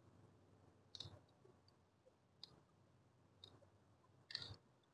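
Faint, sparse clicks, four in all with the last near the end the strongest, from Cat6 cable cores being worked by hand into the terminal slots of an in-wall Wi-Fi router's plastic faceplate.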